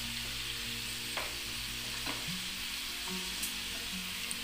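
Okra strips coated in gram-flour, rice-flour and maida batter sizzling steadily as they fry in hot oil in a non-stick pan, about three-quarters cooked. A spatula stirs them, with two light clicks against the pan about a second and two seconds in.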